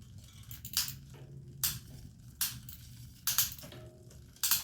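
Bicycle chain and derailleur being turned over by hand: a short, sharp rasp roughly every 0.8 s, five in all, over a low steady hum.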